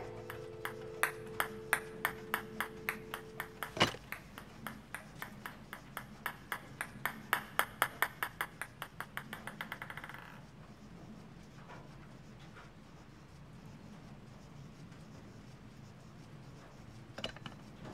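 A ping-pong ball bouncing on a wooden floor, the clicks coming faster and closer together until it settles and stops about ten seconds in. A steady low tone underneath cuts off with a sharp knock about four seconds in.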